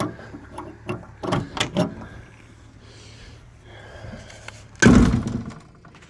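Knocks and clatter at an excavator's cab door, followed by one loud, heavy thump about five seconds in.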